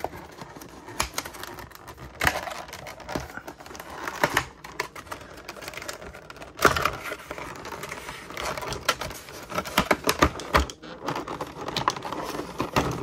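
Hands handling a clear plastic blister tray of trading-card packaging: irregular clicks, taps and crackles of thin plastic, with one sharper snap about halfway through.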